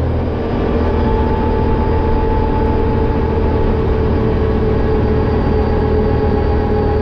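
Quad ATV engine running steadily at cruising speed, about 60 km/h, with a steady whine held over the drone.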